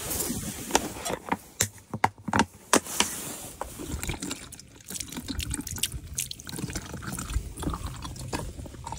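Used cooking oil poured from a cast-iron skillet into a plastic bottle, the liquid trickling in as the bottle fills. Several sharp clicks come in the first three seconds.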